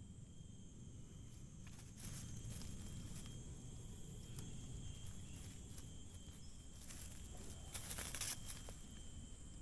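Forest insects sounding steadily in two high, unbroken tones, with a few short bursts of rustling in dry leaf litter, the longest about eight seconds in.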